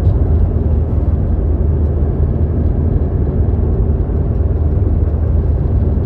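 Steady low rumble of highway driving, road and engine noise heard from a moving vehicle running alongside a concrete mixer truck.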